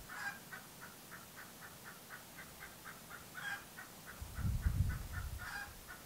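Chicken calling: a steady quick series of short, high calls, about five a second, with a few louder calls over them. A low rumble of wind on the microphone comes in a little past four seconds in.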